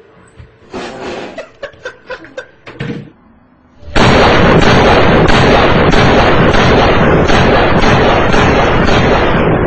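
Gunfire sound effect played by a computer as its startup sound. A string of sharp clicks and knocks comes first, then from about four seconds in a loud, continuous stretch of rapid shots lasting about five seconds, tailing off near the end.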